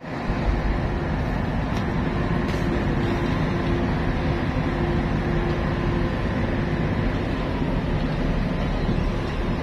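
Steady low rumble of ship's engines and machinery running, with a faint constant hum over it.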